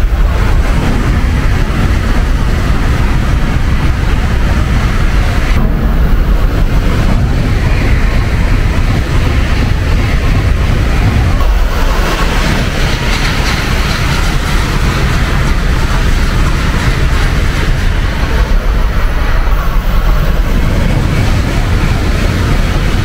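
Tokaido Shinkansen bullet trains passing through the station at full speed without stopping: a loud, steady rush of air and wheel-on-rail noise. The sound shifts abruptly a few times.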